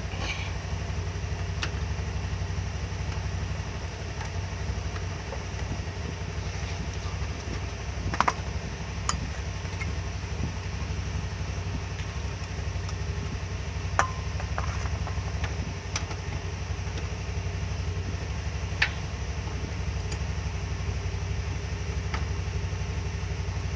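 An engine idling steadily, with a few sharp clicks and clinks over it.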